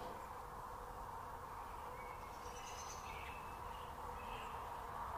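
Quiet outdoor ambience: a faint steady hum under a low background hiss, with a few faint bird chirps in the middle.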